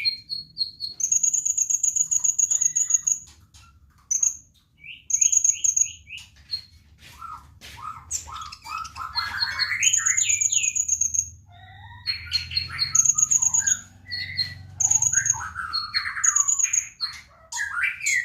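Sunbird (the bird Indonesian keepers call kolibri) singing in lively bursts: high, thin, buzzing trills mixed with fast rising and falling chirps, phrase after phrase with short pauses.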